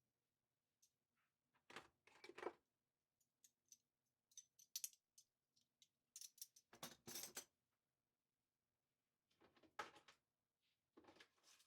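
Metal cutlery clinking and clattering as pieces are handled and set down, in five short bursts a couple of seconds apart.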